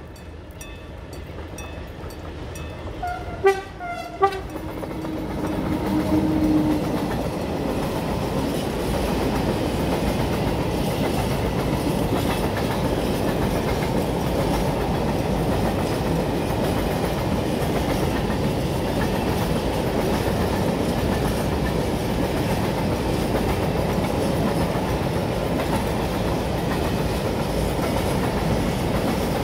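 Class 441 electric locomotive sounding two short horn blasts about three and four seconds in as it reaches the camera, with a steady hum as it passes. Then a long freight train of open wagons rolling by, a steady rumble of wheels on rail.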